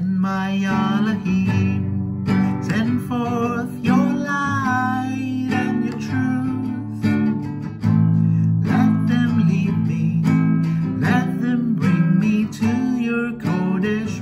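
Acoustic guitar strummed in a steady rhythm, with a voice singing a slow worship song over it.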